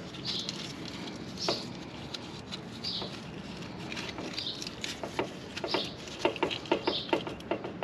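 Light metallic clicks and taps from an open differential's gears and parts as they are worked into place, coming thick and fast in the last few seconds. A bird chirps every second or so through it.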